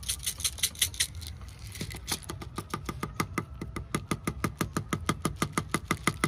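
Kittens crunching dry kibble close up, a fast, even run of crunches, about six to seven a second from about two seconds in.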